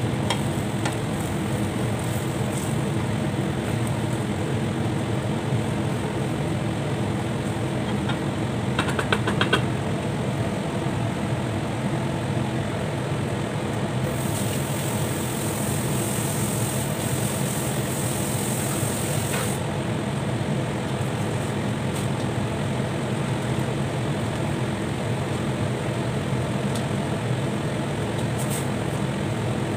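A steady mechanical hum, like a running motor, with a brief clatter about nine seconds in and a faint high hiss from about fourteen to twenty seconds.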